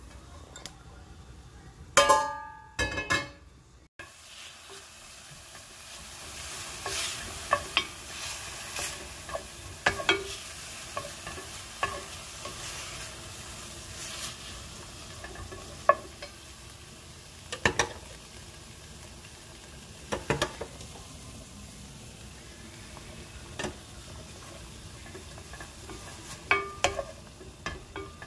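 A few ringing clinks about two seconds in, then thin strips of beef sizzling in a stainless steel pan while a spatula stirs them, with scattered clicks and scrapes of the spatula against the pan over a steady frying hiss.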